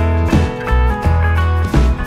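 Background music with a steady beat and a prominent bass line.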